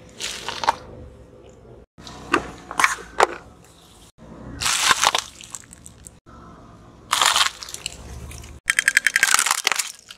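A car tyre crushing objects in a series of separate, short crunching and cracking bursts, each ending in an abrupt cut. The objects are fresh spring onions, wrapped chocolate wafer bars and, near the end, a plastic toy that cracks apart in a quick run of snaps.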